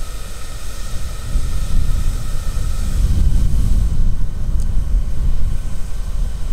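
Steady, fluctuating low rumble of wind buffeting the microphone, with a faint steady whine that fades out about three seconds in.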